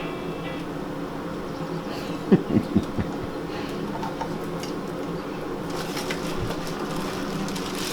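A steady buzzing hum made of several low tones, with four short, loud low knocks in quick succession about two and a half seconds in.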